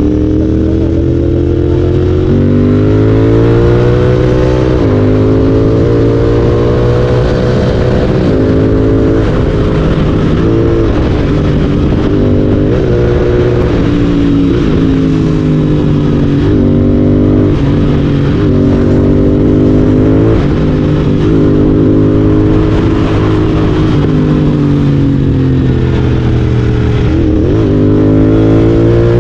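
Royal Enfield Continental GT 650's parallel-twin engine through an aftermarket Red Rooster exhaust, heard from the rider's onboard mic while riding. The revs climb and fall back again and again as the bike is accelerated, shifted and eased off.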